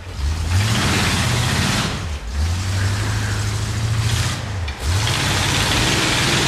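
Off-road rig's engine revving hard as it crawls up a rocky trail, the throttle easing off briefly twice before it pulls again.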